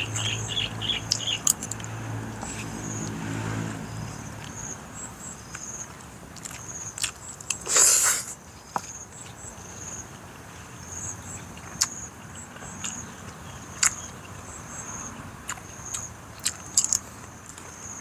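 Someone eating by hand and spoon: scattered light clicks and taps of the spoon against the plate, mouth sounds and the handling of a banana-leaf wrapper, with one louder rushing sound about eight seconds in and a low hum over the first few seconds. A high, repeating chirping continues in the background.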